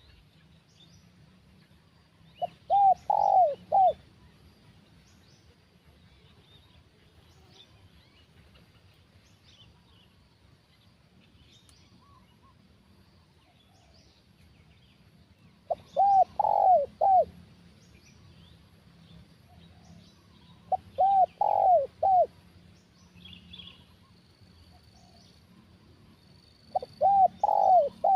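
Spotted dove cooing: four calls several seconds apart, each a quick run of about four short, arched coos, over faint high chirping.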